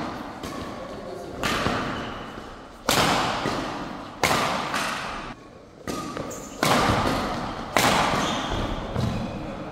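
Badminton rackets striking a shuttlecock back and forth in a doubles rally: about seven sharp hits, roughly a second apart, each echoing in a large hall.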